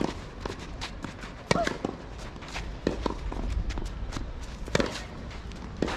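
Tennis rally on a clay court: a racket strikes the ball about every one and a half seconds, the near strikes loudest, with footsteps scuffing on the clay between hits.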